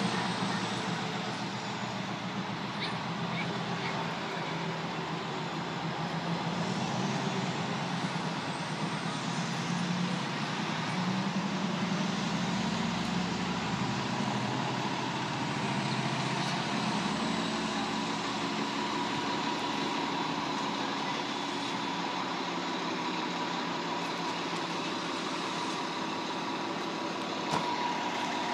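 Diesel engine of a Spartan Gladiator fire engine running steadily as the truck pulls away and drives off.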